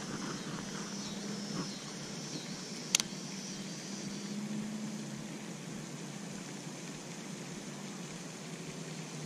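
Steady low background hum outdoors, with a single sharp click about three seconds in.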